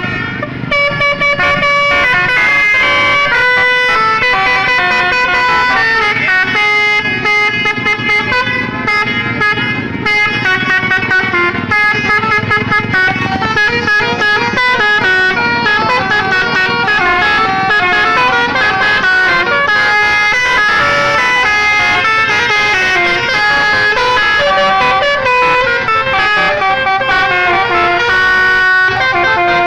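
Bus 'telolet' musical horns playing tunes: strings of stepped, held notes, several horns sounding over one another without a break.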